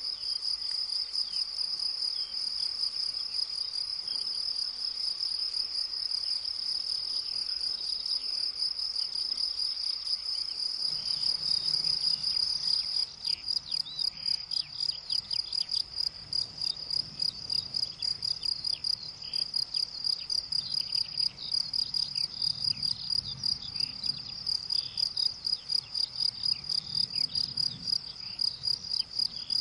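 Meadow insects stridulating in the grass: a continuous high-pitched buzz that, a little under halfway through, breaks into a fast regular pulsing of about three chirps a second.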